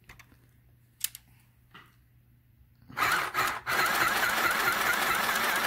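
Mini electric sewing machine stitching black fleece, running a back stitch along the seam end. It starts about three seconds in, pauses for a moment, then runs steadily and stops near the end.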